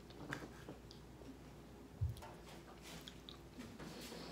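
A person chewing a mouthful of pulled pork and rice with the mouth closed, with faint small clicks; one low thump about two seconds in.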